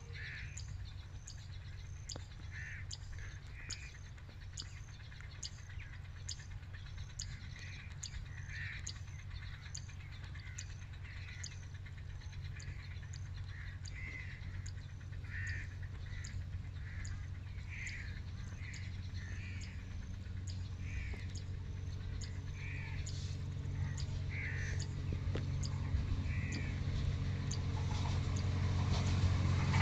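Birds calling repeatedly over the low, steady drone of an approaching Pakistan Railways ZCU-20 diesel-electric locomotive. The engine drone grows gradually louder toward the end.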